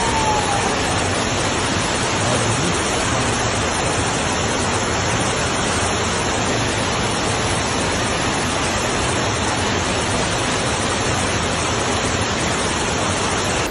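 Floodwater rushing: a loud, steady, even roar with no breaks.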